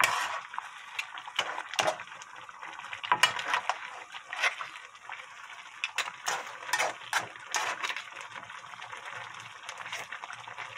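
Wooden spatula stirring a thick, saucy pan of braised monkfish and bean sprouts, with irregular scrapes and clinks against the pan and wet sounds of the sauce. Starch slurry has just gone in to thicken the sauce.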